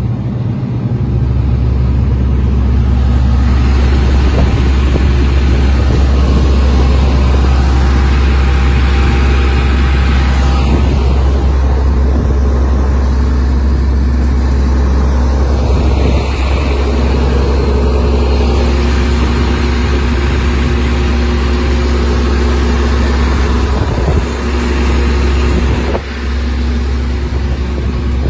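Komatsu PC400-7 excavator's diesel engine running steadily at high revs, stepping up in level about a second in, with two brief dips near the end.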